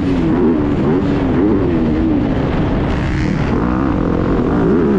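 Dirt bike engine revving up and down, its pitch rising and falling again and again as the throttle opens and closes.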